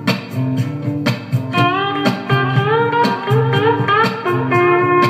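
Background music: sliding, bending guitar notes over a steady beat of about two strokes a second.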